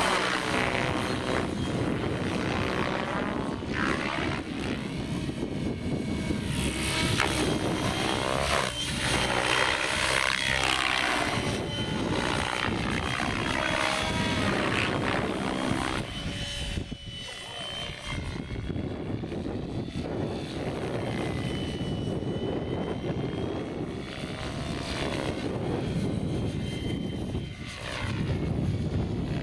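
Radio-controlled model helicopter in flight: its motor and rotor whine shifts up and down in pitch as it manoeuvres. It grows quieter briefly a little past halfway and again near the end.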